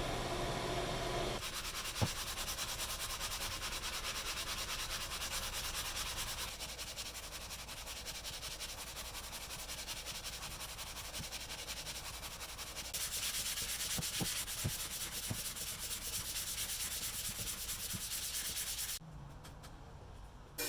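Steady sanding: abrasive rubbing without a break, with a few light knocks, changing in level about a third and two thirds of the way through and falling away near the end.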